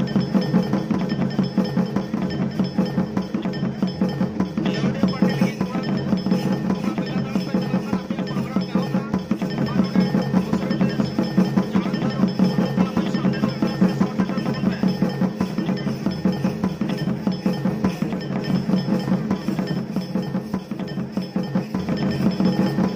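Live folk drumming in a fast, steady rhythm for a lawriya stick dance, with wooden sticks clacking as the dancers strike them together.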